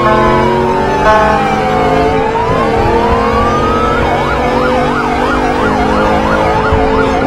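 Police siren sounding: a slow wail falls and then rises, and about four seconds in it switches to a fast yelp, about two and a half sweeps a second.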